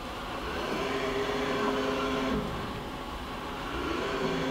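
Fadal VMC 15XT vertical machining center's Z-axis servo drive and ball screw whining as the spindle head is jogged: a steady whine that falls in pitch and stops about two and a half seconds in as the move ends, then starts again and rises near the end as the next move begins.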